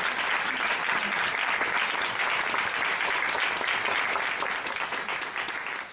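Audience applauding: a dense, even clapping.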